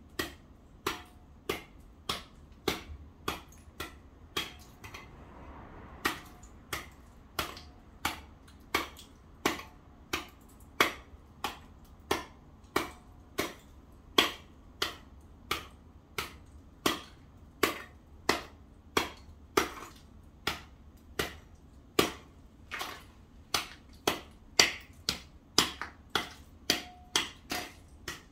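A hand tool chipping at ice and packed snow on the paving, with sharp knocks in a steady rhythm of about two a second and a brief pause about five seconds in.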